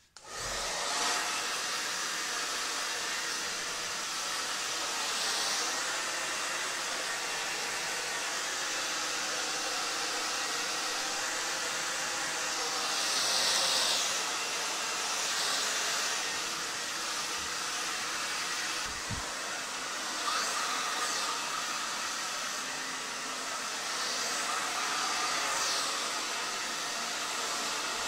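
Handheld hair dryer blowing steadily, switched on right at the start, with its hiss swelling and fading several times as it is moved around the head to dry hair set under a durag.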